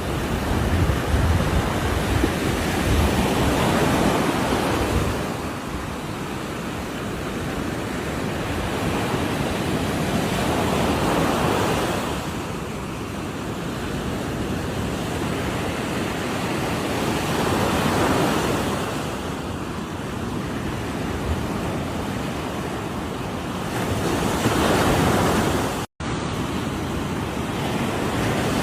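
Ocean waves crashing on a shore, the surf swelling and easing back about every six to seven seconds. The sound cuts out for an instant near the end.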